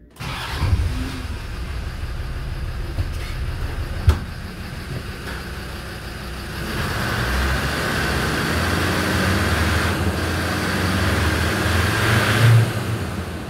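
Land Rover Defender 90's engine starting right at the beginning and running at a steady idle, with a single sharp click about four seconds in. The engine grows louder and hissier from about halfway.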